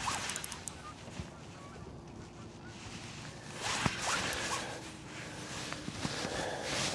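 Fishing reel being cranked in a few raspy spells as a hooked fish is reeled in toward the boat.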